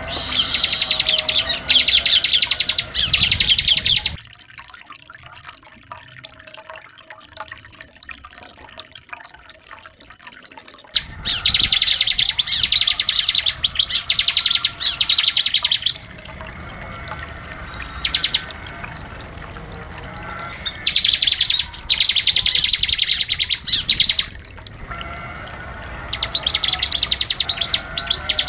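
Bar-winged prinia (ciblek) song: loud, high, rapid chattering phrases in short bursts, coming in groups with pauses between them and a long quieter gap after about four seconds.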